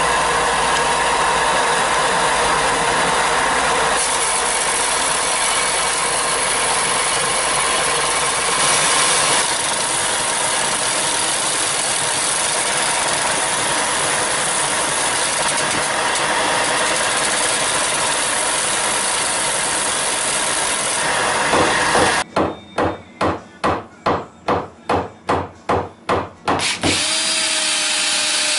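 Benchtop 4-by-36-inch belt and disc sander running steadily with a wooden board pressed against the belt. It stops about 22 seconds in, and a cordless drill then runs in about a dozen short, rapid bursts over some five seconds.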